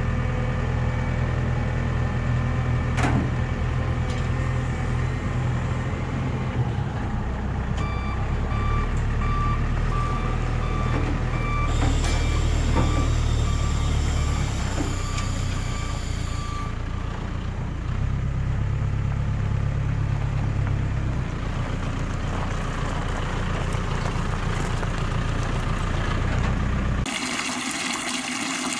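JCB telehandler's diesel engine running as it lifts and carries a truck engine and transmission, its reversing alarm beeping steadily for about eight seconds midway through. Near the end, fluid pours from the hanging engine and splashes onto gravel.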